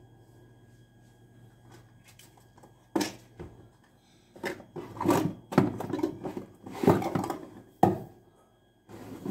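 Kitchen clatter: a run of knocks and clunks from things being handled and set down at the counter. There is one sharp knock about three seconds in, then a busy stretch of clunks, and a last sharp knock just before eight seconds.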